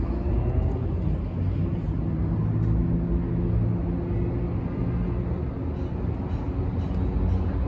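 New York City subway train crossing a steel elevated bridge: a steady rumble with a few low, drawn-out humming tones from the running train.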